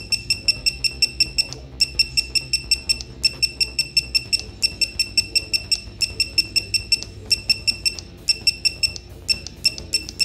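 Digital torque wrench beeping with each press of its adjust button: quick runs of short, high, identical beeps at about six a second, broken by brief pauses, as the set torque is stepped up.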